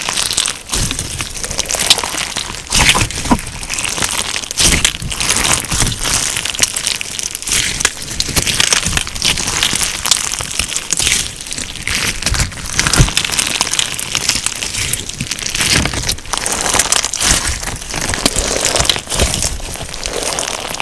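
Slime packed with tiny sugar beads being squeezed and kneaded by hand, giving a continuous dense crunching and crackling with occasional soft low pops.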